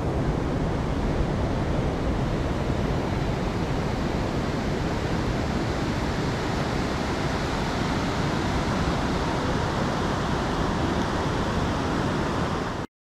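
Steady, even rush of ocean surf and wind. It cuts off suddenly near the end.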